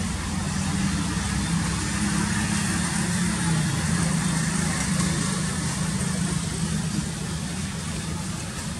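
A motor-vehicle engine idling, a steady low hum under a constant hiss of background noise.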